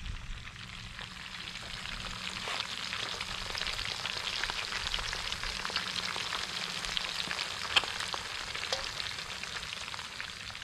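Mojarras frying in hot oil: a steady crackling sizzle full of small pops, growing louder after about two seconds, with one sharper pop about three-quarters of the way through.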